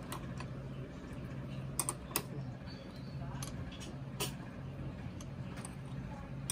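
A wrench clicking and tapping against the metal fittings at a motorcycle's handlebar. There are a few sharp clicks about two seconds in and another just after four seconds, over a steady low hum.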